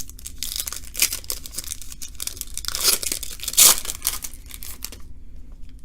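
A trading-card pack's foil wrapper being torn open and crinkled by hand, with the sharpest rip about two-thirds of the way through.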